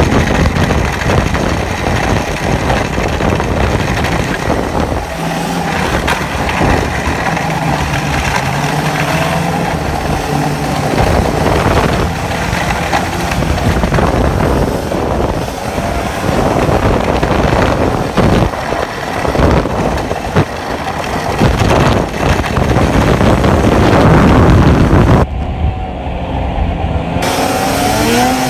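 Snowmobile engine running hard at speed, heard from the rider's seat, mixed with a loud rushing hiss. Near the end the hiss drops away briefly and the engine note then climbs as it accelerates.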